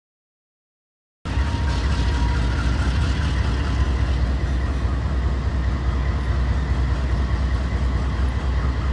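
Dead silence for about the first second, then the steady low rumble of an approaching BNSF freight train's diesel locomotive.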